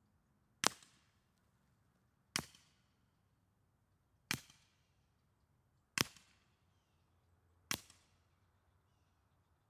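Five suppressed subsonic rifle shots from a Sig MCX in .300 Blackout fitted with a Sig Sauer SRD762-QD suppressor, firing Freedom Munitions Hush 220-grain subsonic ammunition, heard from about 75 yards. Each shot is a short, sharp pop with a brief tail, about 1.7 seconds apart.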